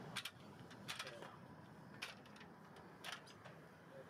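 Faint, fading rumble of a departing four-engine Boeing 747-400F jet as it climbs away, broken by a few short, sharp clicks about a second apart.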